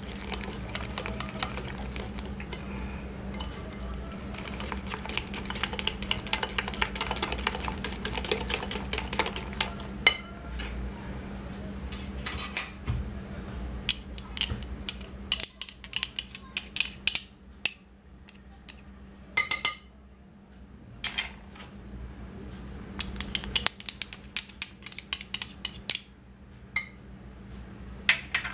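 Small wire whisk beating a runny egg, sugar and oil mixture in a glass bowl, a fast run of clicks as the wires strike the glass. After about ten seconds the beating stops and gives way to scattered taps and clinks on the bowl.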